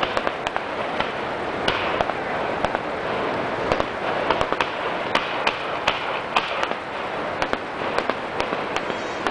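Aerial fireworks display going off: a string of sharp bangs and pops at irregular intervals, about two a second, over a steady rushing background noise.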